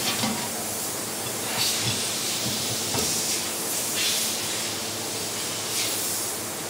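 A steady hiss with three short, louder bursts of hissing, and a faint knock about three seconds in.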